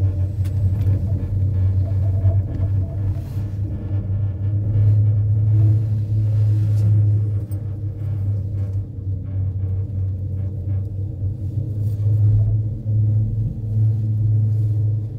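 Steady low rumble of a moving gondola cable car, a continuous hum that swells slightly now and then.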